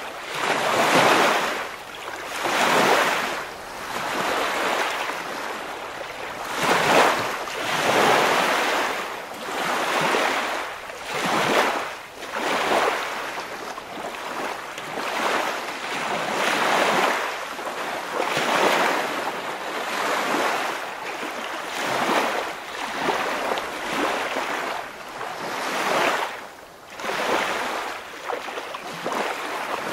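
Waves washing and surging in a steady rhythm, each swell of hiss rising and falling about every one and a half to two seconds.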